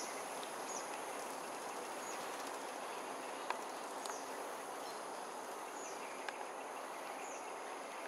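Evening outdoor ambience: a steady insect chorus with thin high tones, through which a short, high, falling chirp repeats every second or two, with a few faint clicks.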